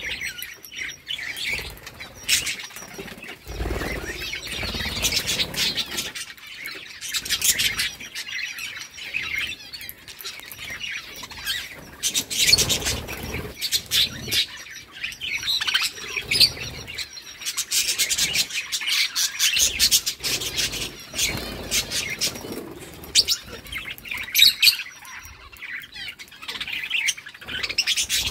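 A flock of budgerigars chirping and chattering continuously in fast, high twitters, with wings flapping now and then.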